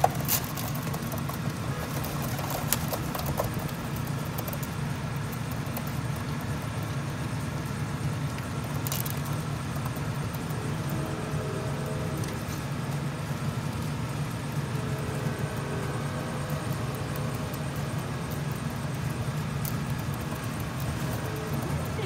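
Steady low hum of city background noise, with a few sharp taps near the start and another about nine seconds in.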